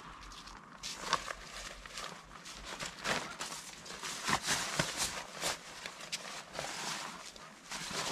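Rain gear rustling and crinkling as a rain poncho is adjusted and rain trousers are pulled on, in irregular rustles and scuffs with some shuffling of feet on the road.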